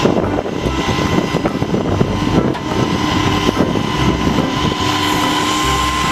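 A steady engine-like drone with a constant whine on top, running evenly like a vehicle or motor.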